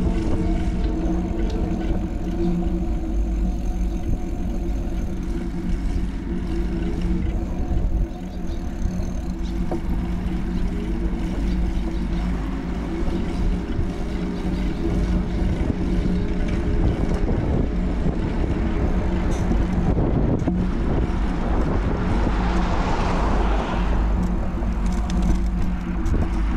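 Street ambience: a steady low rumble with a constant hum, and a car passing, swelling and fading about 22 to 25 seconds in.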